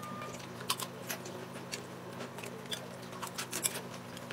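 Mouth noises of a man eating a forkful of ramen topped with crunchy Takis chips: a scattering of faint, irregular clicks and crunches as he chews, over a faint steady hum.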